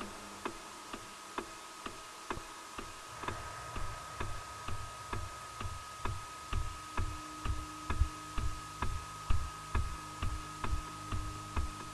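Steady ticking at about two a second, joined about three seconds in by low, dull thumps in time with it that grow louder, over a faint high held tone: the film's sound design for the tormenting noise.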